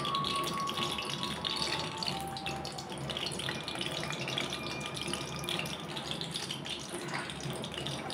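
Samosas sizzling in hot oil in an aluminium kadai as they are slid in one by one to deep-fry: a steady crackling hiss.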